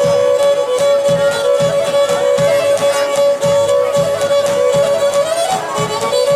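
Pontic lyra playing a dance tune over a steady drone note, with a davul drum keeping a regular beat under it.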